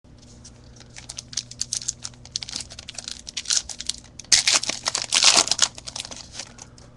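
Trading-card pack wrapper of 2010 Topps Platinum Football being torn open and crinkled by hand: scattered light crackles, then a loud burst of tearing and crinkling for about a second and a half, a little after four seconds in.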